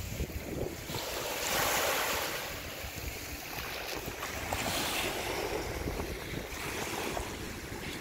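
Small sea waves lapping and washing up onto a shell-covered sand beach, each wash swelling and fading, with wind rumbling on the microphone.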